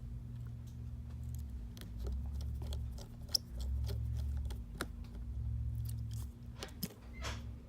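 Faint, scattered clicks and ticks of small repair tools and parts being handled inside an opened iPhone, over a low rumble that comes and goes.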